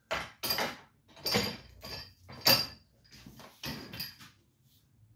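A Stilson pipe wrench on a long extension pole being worked back and forth on a seized hoist spindle: a series of uneven metallic clunks and scrapes, the loudest about two and a half seconds in. The rusted spindle is just beginning to turn, rocking about an inch each way.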